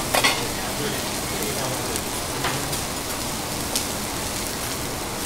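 Food sizzling steadily on a teppanyaki iron griddle, with a few sharp clicks, the loudest just after the start.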